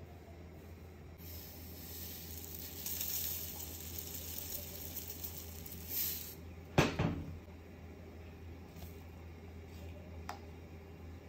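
Spices being added to a steel grinder jar full of garlic, onion and dried chillies: a soft hiss as salt is poured in, then one sharp knock on the steel jar about seven seconds in, and a faint click near the end. A low steady hum runs underneath.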